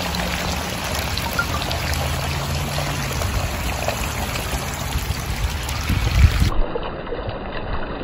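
Water trickling and lapping steadily at the water's edge, with a low thump about six seconds in.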